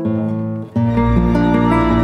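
Background music of plucked guitar notes; a fuller passage with a deep bass comes in a little under a second in.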